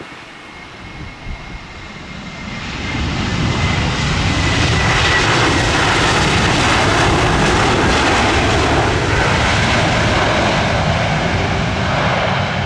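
Jet engines of an Airbus A321neo airliner on landing, growing louder over about two seconds and then holding at a steady loud level, with a faint high whine early on.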